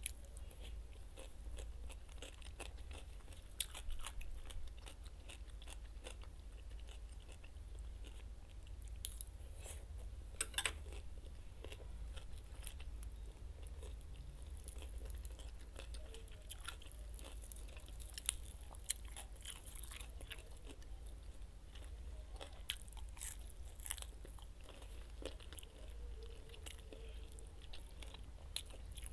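A person chewing and biting into crunchy fresh salad and oven-roasted chicken, with sharp crunches scattered through.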